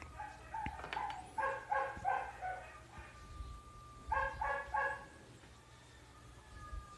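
A dog barking off in the background, faint, in short runs of quick barks: about four near the start and three more a couple of seconds later.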